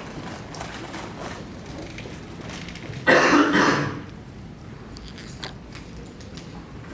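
A person coughs once, about three seconds in, the loudest sound here; around it are faint short ticks and rustles of paper handling.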